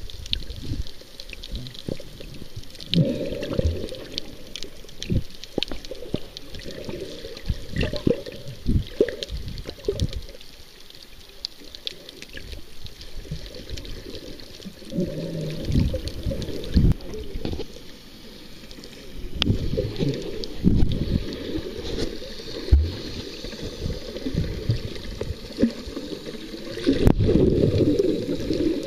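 Muffled underwater sound picked up by a camera held beneath the surface: low sloshing and rushing of water that swells and fades in irregular surges, with faint scattered clicks.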